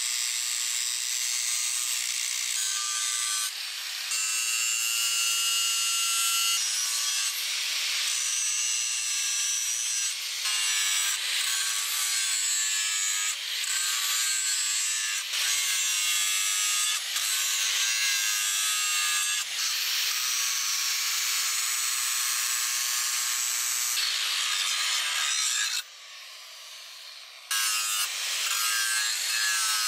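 Angle grinder with an abrasive disc grinding the flat of a leaf-spring steel cleaver blade: a steady high, hissing grind with the motor's whine. The sound changes character every few seconds and drops away for about a second and a half near the end before the grinding resumes.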